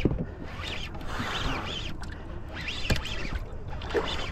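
Fishing reel ratcheting and clicking as a hooked musky is fought at the side of the boat, with one sharp knock about three seconds in.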